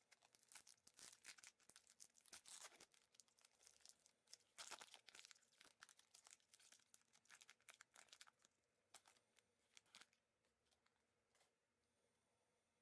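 Faint crinkling and tearing of a trading card pack's plastic wrapper being torn open by gloved hands: a dense run of rustles, loudest a few seconds in, that dies away after about ten seconds.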